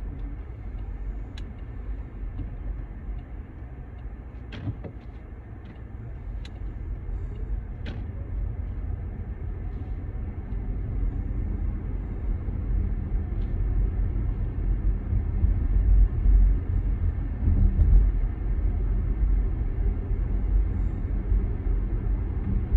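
Low, steady rumble of a moving vehicle, growing louder about halfway through, with a few faint clicks in the first eight seconds.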